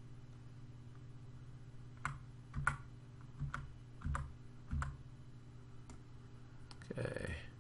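Computer keyboard arrow keys pressed one at a time: about six separate clicks a little over half a second apart. Near the end comes a short, denser rustling noise, and a steady low hum runs underneath.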